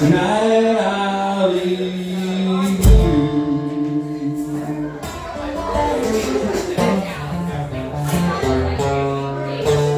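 Live acoustic duo: a man singing long held notes over an acoustic guitar, with hand-drum and cymbal percussion. A low drum hit lands about three seconds in.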